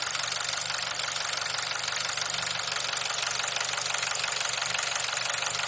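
Nissan QG18DE 1.8-litre four-cylinder petrol engine idling hot with a fast, steady knock, the knock from the lower part of the engine that the owner is tracking down, heard here with the oil pressure at about 1 bar, within spec.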